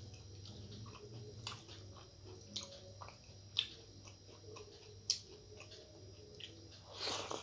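Eating rice by hand: fingers mixing rice on a plate, then chewing with wet mouth clicks and smacks. There are a few sharp clicks spread through, and a longer rustling burst near the end.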